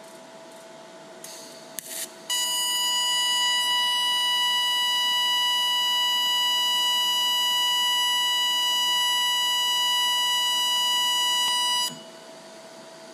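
Pulsed DC TIG welding arc on 304 stainless steel from a Lincoln Electric Aspect 230 set to a 1000 Hz pulse frequency: a loud, steady, annoying high-pitched whine with overtones. It starts abruptly about two seconds in, after two brief bursts of noise as the arc is struck, and cuts off suddenly near the end when the arc is broken.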